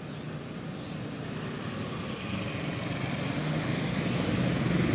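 A motor vehicle on the street approaching, its engine and tyre noise growing steadily louder.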